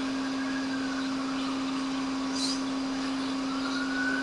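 Hot air rework station blowing steadily on an iPhone logic board: a constant motor hum under an airflow hiss, heating the U5600 touch IC to desolder it.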